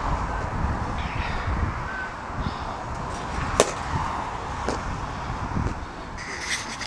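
A sharp crack of a bat hitting a pitched baseball about three and a half seconds in, sending it up as a pop fly, followed by a softer knock about a second later. A brief rattling comes near the end, over steady wind rumble on the microphone.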